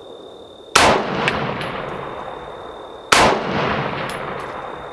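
Two shots from an AR-15-style rifle, about two and a half seconds apart, each followed by a ringing echo that dies away. A few light ticks come in the second or so after each shot.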